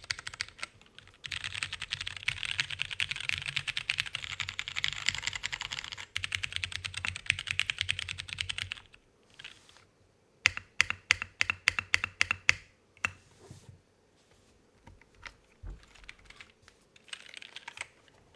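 Typing on a KBD8x MK3 mechanical keyboard with Cherry MX2A Purple switches: fast continuous keystrokes for most of the first half, then a short pause, a run of separate louder key presses, and a few scattered clicks near the end.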